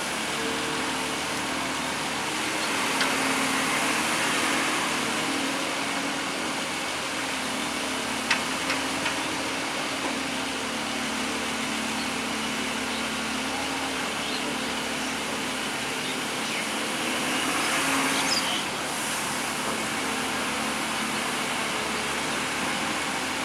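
Diesel engine of a large Volvo hydraulic excavator running steadily at a constant pitch, swelling louder twice, with a few sharp knocks about eight seconds in.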